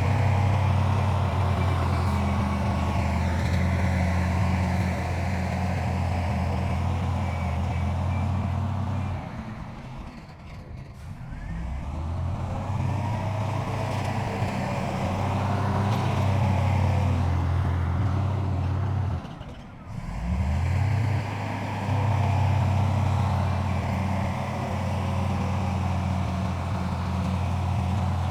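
Heavy diesel engine of earthmoving machinery working under load with a deep, steady drone. It eases off for a couple of seconds about a third of the way through. About two-thirds through it drops away briefly, then revs back up.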